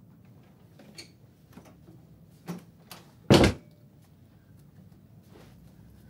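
Door sounds: a few faint clicks and knocks, then one louder short thud a little over three seconds in.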